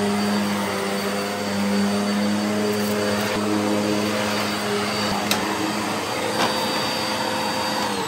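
Morphy Richards Ultralight bagged upright vacuum cleaner running steadily as it is pushed over carpet, its motor giving a steady hum with a faint high whine. Two short ticks sound about five and six seconds in.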